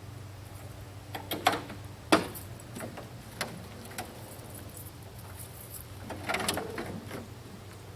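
Metal clanks, knocks and rattles from handling a loading ramp on a pickup truck, the loudest clank about two seconds in and a burst of rattling near the end, over a steady low hum.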